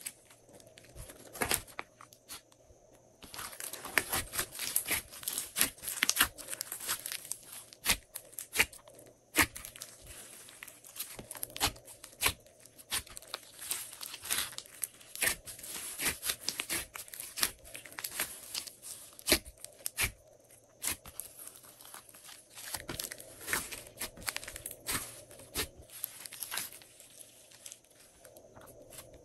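Slime being squeezed and worked in plastic piping bags: a dense run of irregular crackles, pops and crinkles with short pauses.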